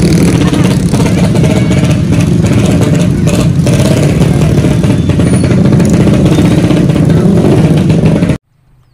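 Dense street traffic of motor scooters and cars crawling through a crowd, many engines running together. It cuts off suddenly near the end.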